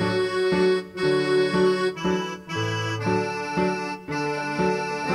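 Background music played on keyboards: an accordion-like melody over chords and a bass line, in a steady rhythm.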